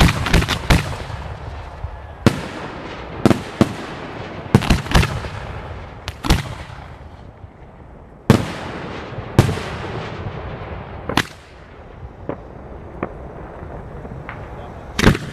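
Aerial fireworks shells bursting: a dozen or so sharp booms at irregular intervals, several in quick succession in the first few seconds, each trailing off in an echo.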